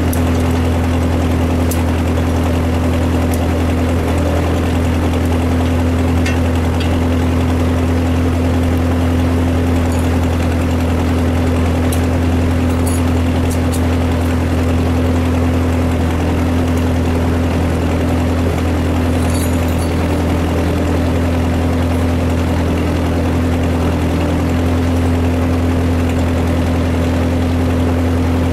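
A loud, unchanging mechanical drone: a low hum with a steady higher tone and a rushing noise over it, with a few faint light clicks of work partway through.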